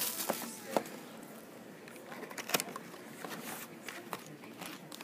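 Foil trading-card packs and their cardboard box handled as the packs are lifted out: light rustling with a few sharp taps.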